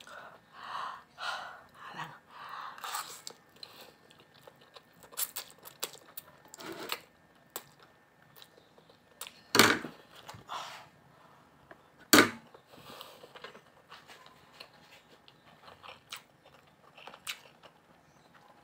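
Close-up chewing and mouth sounds of a man eating pancit canton instant noodles, with metal forks clicking and scraping on a ceramic plate. Two loud, sharp clicks stand out, the first about halfway through and the second a few seconds later.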